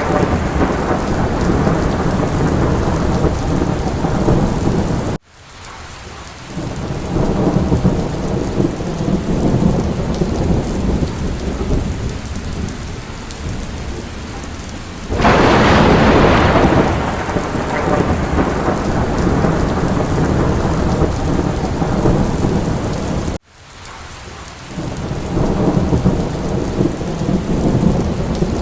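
Steady rain with rolling thunder; a sudden loud thunderclap comes about halfway through and fades off as a rumble. The sound cuts out abruptly twice and fades back in.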